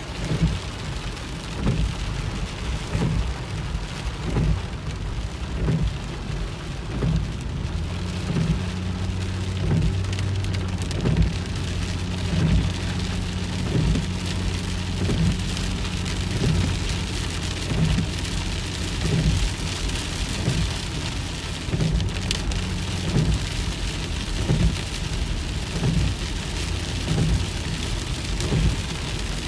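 Heavy rain pattering on a car's windscreen and body, heard from inside the moving car. There is a low thump about every second and a half as the windscreen wipers sweep. A steady low hum runs through the middle stretch.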